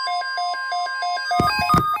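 Emergency weather alert devices going off: rapid electronic beeping, about four beeps a second, over a steady single alert tone. About a second and a half in there are a couple of knocks, and the steady tone stops as the beeping shifts to a different pitch pattern.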